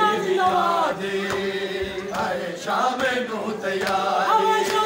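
A group of men chanting a Punjabi noha (Shia lament) together, holding long notes that slide down in pitch between phrases.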